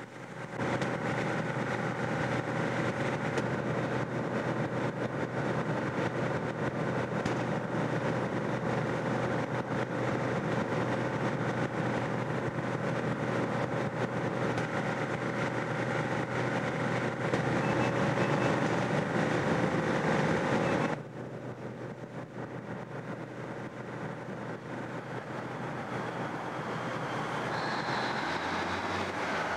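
Steady mechanical running noise with a constant hum. About 21 seconds in it cuts sharply to a quieter rumble that slowly grows louder.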